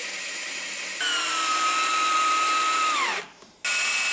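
A bandsaw runs steadily for about a second. Then a cordless drill drives screws in two runs: the first lasts about two seconds and drops in pitch as it stops, and a second, higher run starts just before the end.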